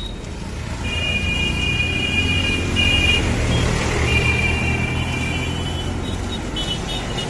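Road traffic with a loaded dump truck passing close: its diesel engine rumble swells to a peak about three to four seconds in, then eases. A high, steady two-pitched whine sounds for about four seconds, with a short break near the middle.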